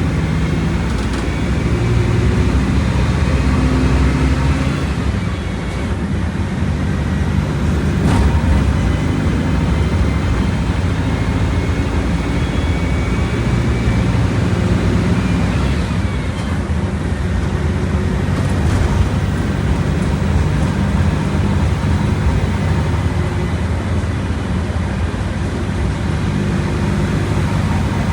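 Volkswagen Volksbus 17.230 Euro 6 bus engine running under way, a steady low drone that rises and falls in pitch with speed, with a short drop in loudness about five seconds in.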